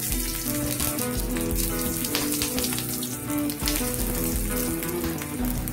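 Eggplant slices frying in hot mustard oil in a steel pan: a steady sizzle with scattered crackles as more slices are laid in. Background music plays under it.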